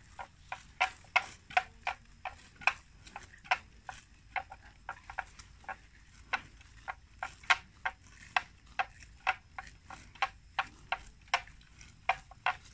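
Water buffalo grazing: sharp, irregular snaps of grass being torn off, about three a second.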